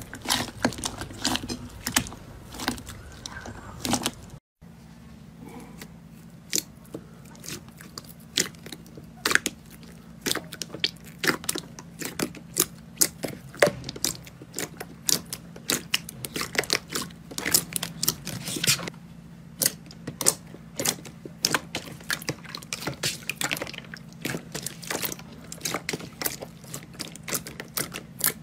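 Hands pressing and squeezing thick glossy slime, making many quick, irregular sticky clicks and pops. A brief cut to silence comes about four and a half seconds in, and then the clicking goes on over a faint steady hum.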